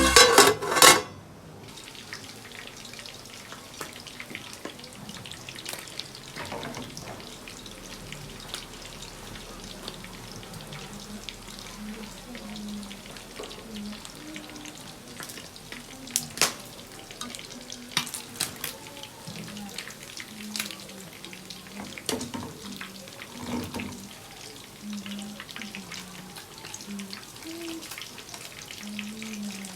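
Food frying in hot oil: a steady sizzle with scattered pops and crackles, after a brief burst of music at the very start.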